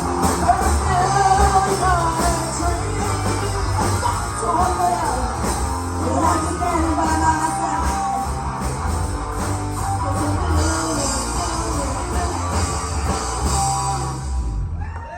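Live rock band playing, with electric guitar and bass guitar over drums. The band stops near the end as the song finishes.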